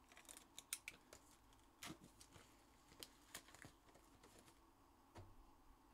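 Near silence with faint, irregular small clicks and taps, about a dozen over a few seconds.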